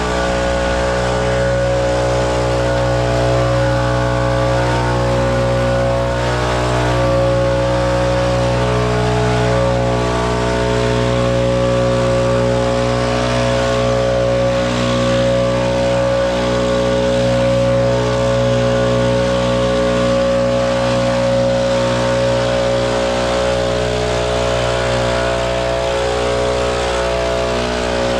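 Engine of a snow-clearing machine running steadily at a constant speed, with a steady hum and no pauses.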